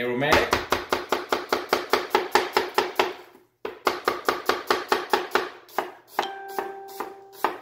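Chinese cleaver slicing an onion on a wooden cutting board: quick, even knife strokes hitting the board about six times a second, with a brief pause about three and a half seconds in.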